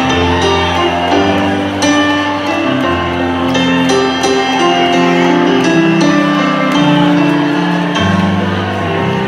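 Live band playing a slow ballad intro, keyboard chords held over bass notes that change every second or two.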